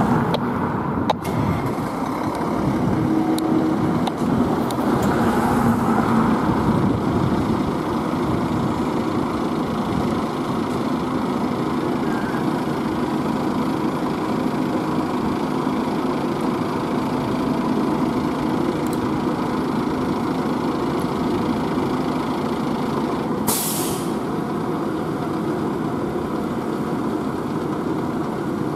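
Seagrave fire engine's diesel idling steadily in the firehouse bay. About 23 seconds in comes one short hiss, typical of the air brakes being released.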